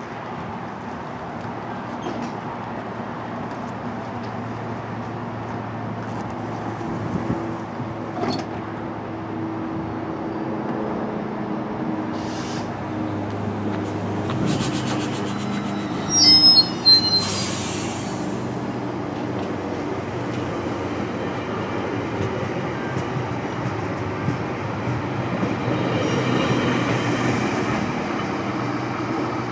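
GO Transit bilevel commuter train standing at the platform with its diesel locomotive running, a steady low hum. About halfway through comes a short, loud burst of hissing and high squeaks.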